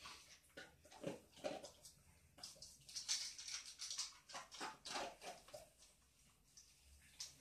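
Old English sheepdog eating from a bowl while lying down: irregular chewing and smacking mouth noises, several a second, busiest in the first few seconds and thinning out toward the end.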